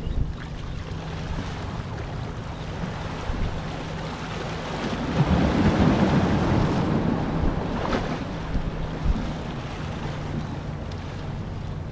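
A boat's motor runs with a steady low hum, under wind buffeting the microphone and the wash of water. A louder rush of wind and water swells about five seconds in and lasts a couple of seconds.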